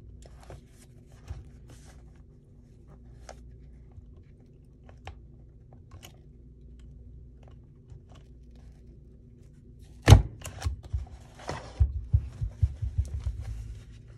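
Quiet paper handling with small clicks, then a sharp crack about ten seconds in and a crunching run of low knocks as a hole is pierced through a stack of journal pages for sewing the signature.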